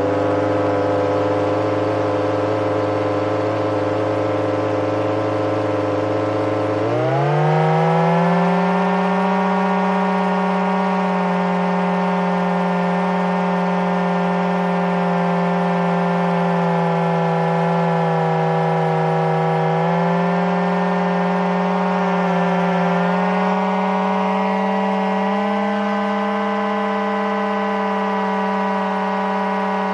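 Homemade supercharged turbine running at idle with a steady, siren-like whine. About seven seconds in its pitch climbs quickly to a higher note, which then holds with slight wavers.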